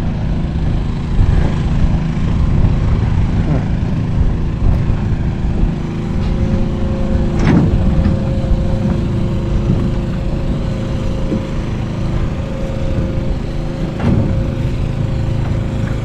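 Small engine running steadily at constant speed, with a steady whine joining in about six seconds in and a couple of sharp knocks.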